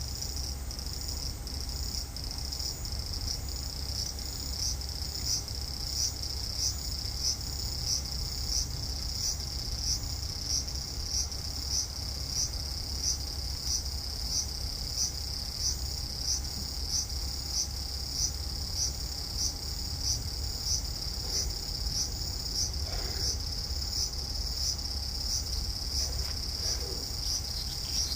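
A large brown cicada (aburazemi) singing: a steady, high, sizzling buzz that swells in regular pulses about one and a half times a second, over a low steady hum.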